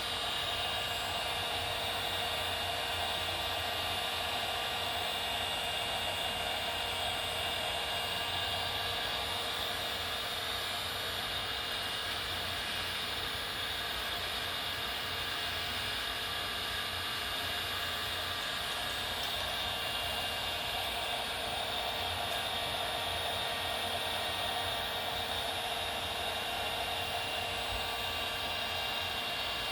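Cordless battery-powered heat gun running steadily, blowing hot air to shrink heat-shrink tubing over a coax connector, with a steady fan whine.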